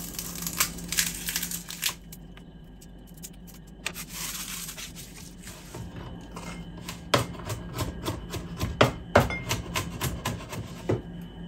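Garlic cloves being peeled by hand on a wooden chopping board, with light clicks and the rustle of papery skins. In the second half a large knife chops the cloves on the wooden board: a run of sharp, uneven taps.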